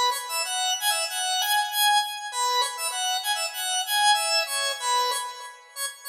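Novation MiniNova synthesizer playing a bright lead melody on its 'Hop2Lead' patch, notes changing a few times a second, with no bass or drums underneath. The phrase dips away near the end.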